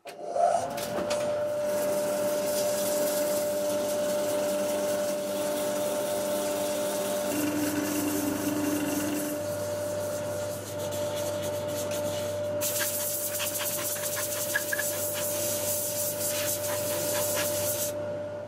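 Wood lathe running with a steady motor whine that comes up to speed about half a second in, while sandpaper hisses against the spinning ash bowl. The hiss gets brighter about two-thirds of the way through.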